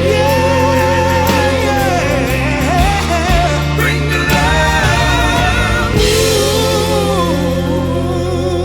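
Background music: a pop song with a sung melody over a steady bass and held chords, the phrase changing about six seconds in.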